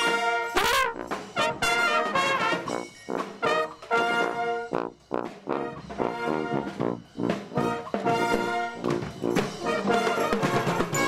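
Marching brass band playing a lively tune in short, rhythmic notes, led by trumpets with sousaphones on the bass line.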